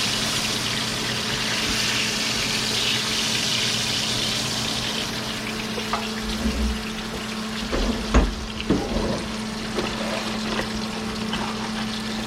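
Crappie and bass fillets sizzling in hot oil, the sizzle strongest in the first few seconds and then easing, over a low steady hum. A few sharp knocks come about six to nine seconds in.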